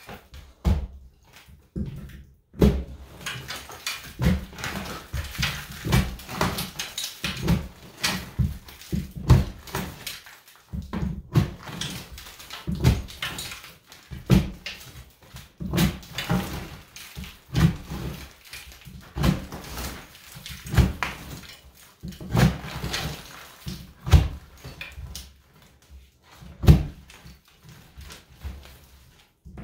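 Stucco being broken and pried off a wall with hand tools: repeated irregular knocks and cracks about once a second, with chunks breaking away. The stucco is coming off hard.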